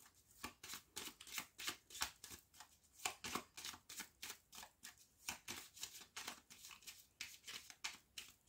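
A Lenormand oracle card deck being shuffled by hand: quiet, irregular papery slaps and flicks of cards against one another, several a second.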